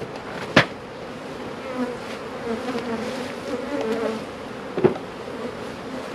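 Swarm of honeybees buzzing around an opened hive, a steady, wavering hum. Two sharp knocks come through it, one about half a second in and a louder one near five seconds.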